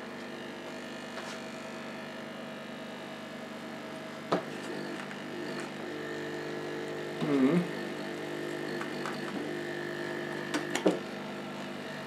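Hailea AC9820 electromagnetic diaphragm air pump, rebuilt with 3D-printed Ninjaflex diaphragms and valve discs, running on mains with a steady hum. It is delivering little air pressure. A few handling clicks and a short squeak around the middle sit over the hum.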